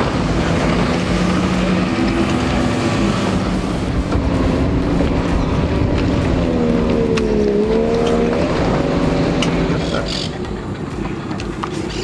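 Motorboat engines running at speed as boats race across the water. One engine's pitch dips and climbs back about seven seconds in.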